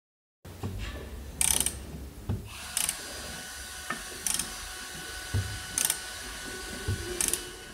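Ratchet handle on a dual-clutch gearbox tool ratcheting as it is worked, in five short strokes about a second and a half apart, starting about half a second in.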